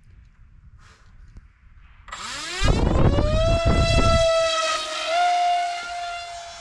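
Electric motor and propeller of a small FPV plane spinning up with a rising whine about two seconds in, then holding a steady high-pitched whine that steps up slightly in pitch and grows fainter as the plane flies away. A burst of low rushing air noise comes with the spin-up and launch.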